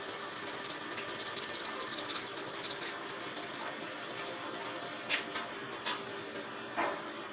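A small motor-driven machine running steadily, with rapid fine ticking over the first few seconds and three sharp clicks near the end.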